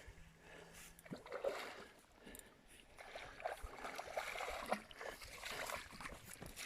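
Faint, irregular splashing and sloshing of water from a hooked carp thrashing at the surface as it is played in close, with scattered small knocks; it picks up about a second in and grows busier toward the end.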